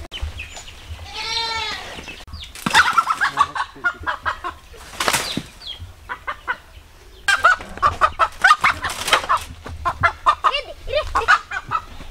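Desi rooster squawking in alarm in two long runs of rapid, harsh cries, with wings flapping, as it is chased.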